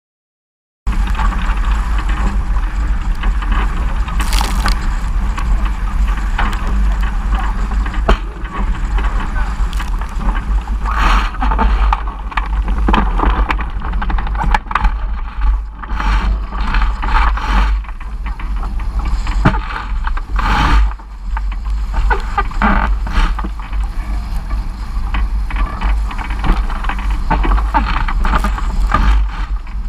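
Strong wind buffeting the microphone in a constant deep rumble, over water rushing and splashing along a sailing dinghy's hull, with occasional sharp slaps. It begins about a second in.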